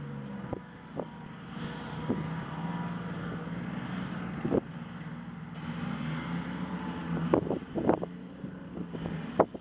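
Engines of a line of tanks and armoured vehicles running, a steady low drone heard from a distance, with a few short sharp knocks scattered through and clustered near the end.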